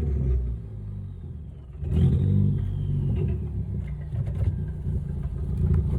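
Ford Focus ST's turbocharged four-cylinder engine. It eases off early on, picks up again about two seconds in with a high whine falling in pitch, and builds again near the end, during a wide-open-throttle test for a misfire.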